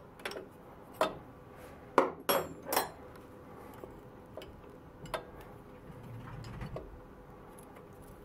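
Metal wrench clinking against the nut and gears of a Logan 825 lathe's end gear train as the new gear stack is fastened: a few sharp metallic clinks, the loudest about two seconds in, then a single one about five seconds in.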